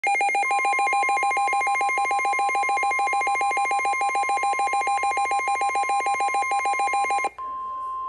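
NOAA weather alert radio sounding its warning alarm: a rapid electronic beeping, about eight beeps a second, over the broadcast's steady warning tone, signalling a warning-level alert (a Special Marine Warning). The beeping cuts off suddenly near the end, leaving the steady tone.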